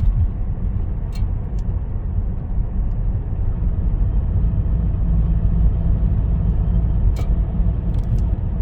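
Steady low rumble of a 2016 Ford Escape Titanium's 2.0L four-cylinder on the move: the noise the owner hears when accelerating. A few faint clicks sound about a second in and again near the end.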